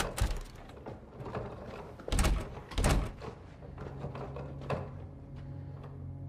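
A door being handled: latch clicks and knocks, the loudest about two and three seconds in, with a smaller knock later.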